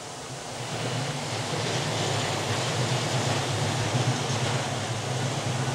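Steady city street noise: a broad hiss with a low rumble underneath that builds about half a second in and then holds.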